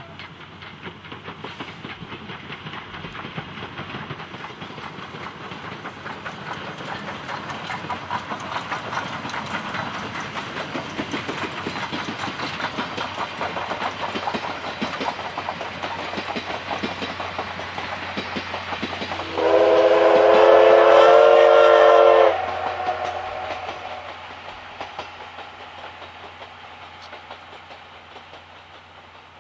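Steam locomotive D51 498 drawing near, its rhythmic exhaust and running noise growing steadily louder, then a loud steam-whistle blast lasting about three seconds roughly two-thirds of the way in. After the whistle the sound fades away.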